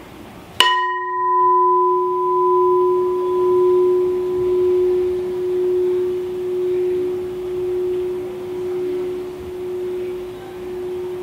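A resonant sculptural vessel struck once about half a second in, ringing with one clear low tone and a few higher overtones that fade within a few seconds. The low tone rings on, slowly fading, with a steady wavering about once a second.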